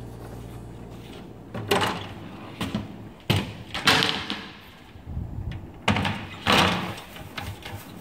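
A glass refrigerator shelf and its plastic frame handled and wiped on a stone countertop: a series of separate knocks and sliding scrapes, the longest scrapes about halfway through and near the end.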